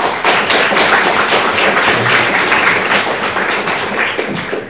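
Audience applauding: a dense, steady clatter of many hands clapping that thins out and fades near the end.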